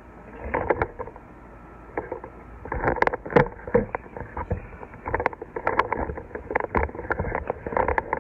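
Handling noise as the recording camera is picked up and moved: irregular knocks, clicks and rubbing, with the sharpest knocks about 3 seconds in.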